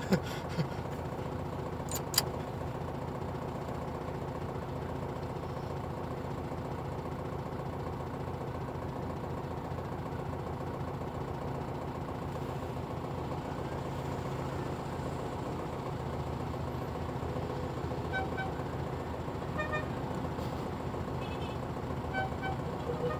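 Air-cooled Volkswagen Beetle flat-four engine idling steadily, with a couple of sharp clicks in the first two seconds. Several short car-horn toots sound in the last few seconds as another Beetle pulls up.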